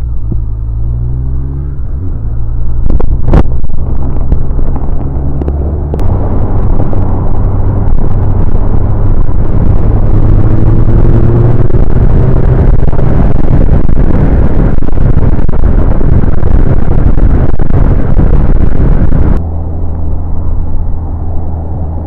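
Suzuki Bandit 1200's inline-four engine pulling away with its pitch rising, then held at speed under heavy wind noise on the helmet microphone. About nineteen seconds in, the wind noise drops away suddenly and the engine settles back lower as the bike slows.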